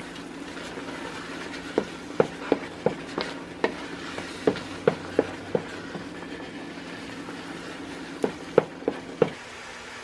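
Wooden spoon stirring thick tomato paste in a pot, giving irregular soft knocks in clusters of three or four. The paste is near the end of its reduction, almost dry and sticking to the pot. A steady low hum runs underneath and stops near the end.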